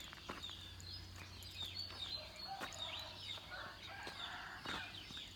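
Chickens clucking among many quick, faint chirps of small birds.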